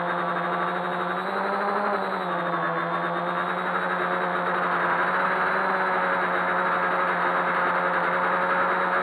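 Quadcopter's electric motors and propellers humming steadily in flight, the pitch rising briefly about a second and a half in and then settling back to an even drone.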